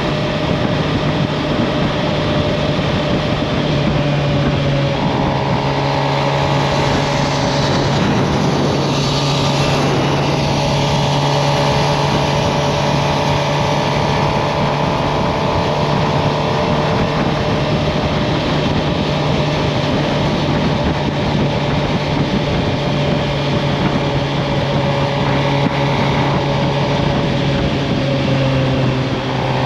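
2023 Suzuki GSX-R750's inline-four engine running at steady cruising revs under a steady rush of wind noise, with a brief swell of noise about eight seconds in.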